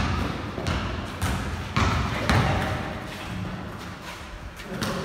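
Basketball bounced on a concrete floor in a large, echoing hall: a run of dribbles about every half second, then a quieter stretch and one more sharp thud near the end.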